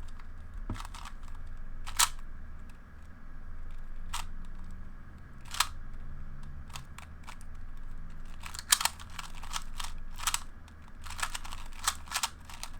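Plastic Rubik's Cube being turned quickly in a speed solve: irregular clicks and clacks of the layers, bunched into quick runs near the end.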